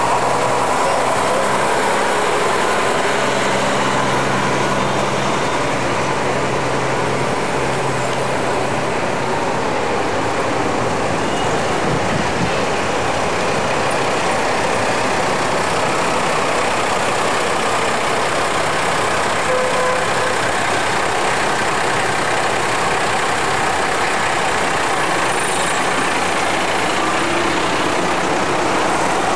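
A procession of farm tractors driving past at close range, their diesel engines running loud and steady. A low engine drone stands out for the first several seconds, then blends into the general noise as the next tractors pass.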